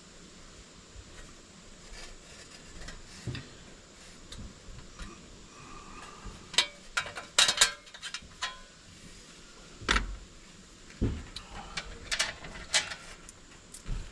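Scattered metal clicks, clinks and knocks of hand tools and parts being worked at an electrical subpanel, with a quick run of clicks a little past halfway and a couple of dull thumps later on.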